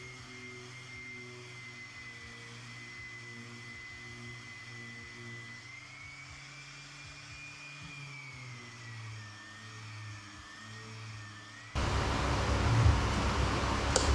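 Orbital sander running with a vacuum hooked up to it: a steady hum with a high whine that drifts slowly up and down in pitch. About twelve seconds in, a much louder, rough noise cuts in suddenly.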